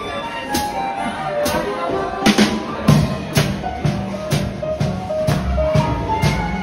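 Small swing band playing live: a drum kit marks about two beats a second under walking upright bass, piano and held melody notes.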